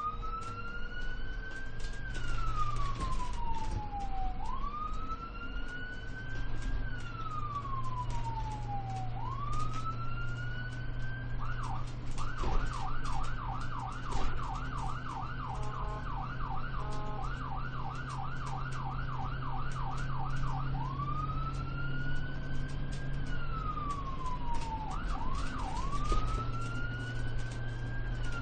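Ambulance electronic siren in wail mode, each tone rising for about two seconds and falling more slowly. About twelve seconds in it switches to a fast yelp of roughly three sweeps a second for some nine seconds, then goes back to the wail. Underneath runs the steady low hum and road noise of the moving vehicle.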